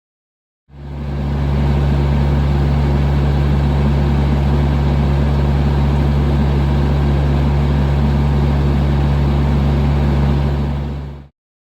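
TYM T474 HST tractor's diesel engine running at a steady speed, with a deep unchanging hum. It fades in just under a second in and fades out near the end.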